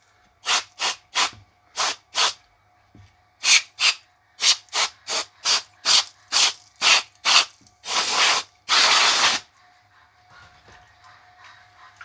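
Air duster blowing dust off metal sockets in short, sharp blasts of hissing air, a dozen or more in quick succession, then two longer blasts about eight seconds in.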